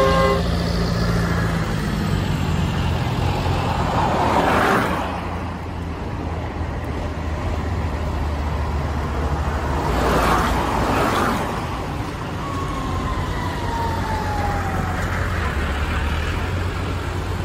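Farm tractors, New Hollands among them, driving past one after another on a wet road: a steady diesel engine rumble, with tyre hiss swelling as a tractor passes about four seconds in and again about ten seconds in.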